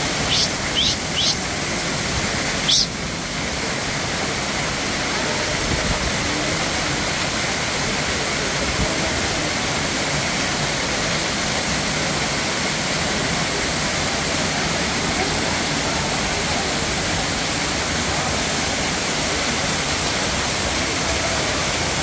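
Waterfall: several strands of water falling down a rock face onto rocks and into a shallow pool, a steady rush of water. A few short high-pitched sounds come in the first second, and a sharp click just under three seconds in.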